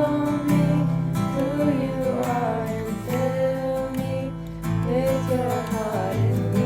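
Music led by a strummed acoustic guitar, with a melody line gliding above the chords.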